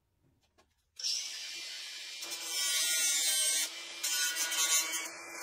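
Near silence for about a second, then a cordless angle grinder runs and grinds, cutting off the steel nail ends that stick out of the wooden clamp spools. The grinding gets louder for about a second in the middle, then eases.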